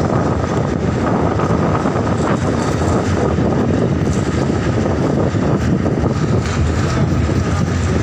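Steady running noise of a moving vehicle and rushing air through an open window, loud and echoing inside a tunnel.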